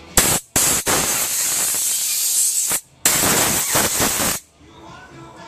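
Compressed-air blow gun blasting air through a small brass carburetor jet to clear it. Two short bursts, then two longer hissing blasts of about two seconds and a second and a half.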